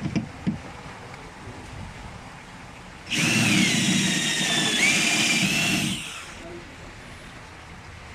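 Power drill running for about three seconds, starting about three seconds in, its whine sagging in pitch and then rising again as the load changes. A few light clicks come near the start.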